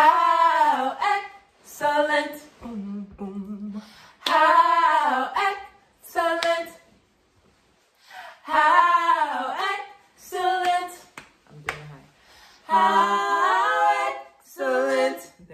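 Three women singing a cappella together in harmony, in short sung phrases broken by gaps, with a pause of about a second just past halfway before they sing again.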